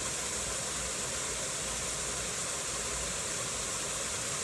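Steady, even hiss of noise, strongest in the high register.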